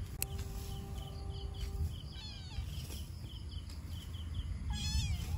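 Outdoor rural background: a short high chirp repeats about two or three times a second, with a couple of brief falling calls, one about two seconds in and one near the end.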